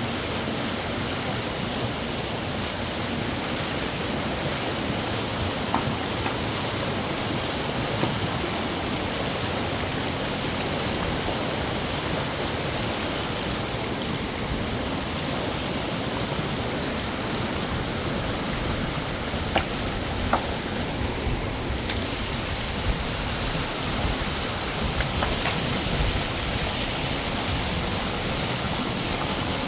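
A river's water rushing steadily, with a few brief clicks or knocks now and then.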